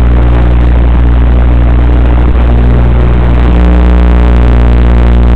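Loud, steady electrical buzz with many evenly spaced overtones, from the audio track of an analog FPV camera's video link. About three and a half seconds in, more high overtones join the buzz.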